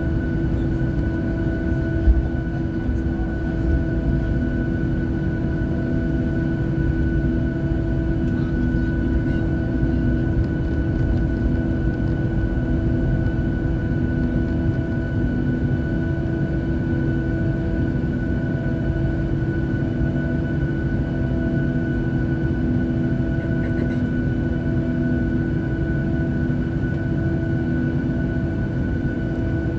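Inside the cabin over the wing, a Boeing 737-700's CFM56-7B jet engines run at taxi power: a steady hum of several held tones over a low rumble, with a slow beat that pulses about every second and a half. A single thump comes about two seconds in.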